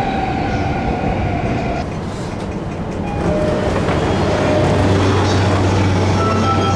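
Keihin-Tohoku Line E233-series electric commuter train running and slowing into a station, heard on board: steady running noise with motor whine tones that shift pitch in steps, and a low hum growing from about halfway through.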